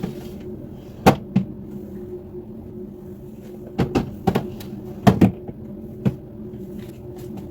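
Plastic storage boxes and produce being handled and set down in a refrigerator: a series of irregular knocks and clatters, several in quick pairs, over a steady hum.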